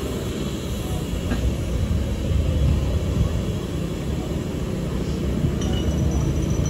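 Truck engines running nearby, a steady low rumble.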